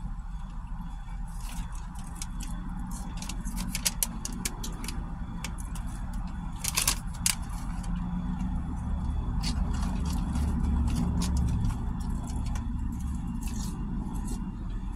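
Paper fries carton and receipt crinkling and crackling in the hands while fries are eaten, with a sharper cluster of rustles about seven seconds in. Underneath is a steady low vehicle rumble that swells for a few seconds after the middle.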